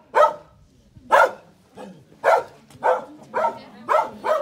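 A dog barking repeatedly in short, sharp barks, roughly two a second.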